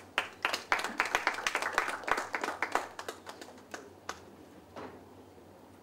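Scattered clapping from a small audience, quick and dense for about three seconds, then thinning to a few separate claps that stop about five seconds in.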